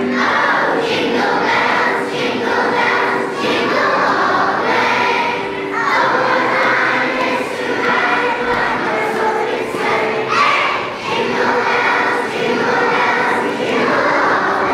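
Chorus of kindergarten and first-grade children singing together, holding sung notes with a steady, even loudness.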